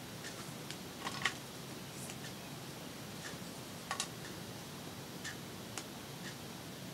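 Scattered soft clicks and taps from hands and metal tweezers handling paper stickers on a journal page. They come at irregular intervals, the loudest pair about a second in and another sharp tick about four seconds in.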